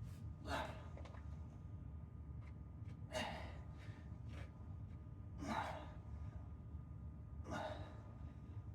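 A man breathing hard from exercise, with four heavy exhales spaced about two to two and a half seconds apart, over a low steady hum.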